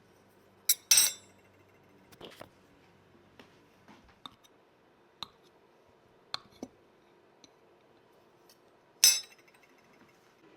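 Glassware and dishes clinking and knocking as they are handled, about a dozen separate sharp clinks with quiet between them. The two loudest come about a second in and near the end.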